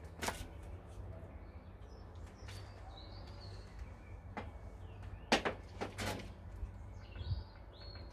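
A handful of sharp knocks and clacks as coaxial cables are pulled and handled against a metal antenna mast and railing, the loudest about five seconds in. Birds chirp in the background over a low steady rumble.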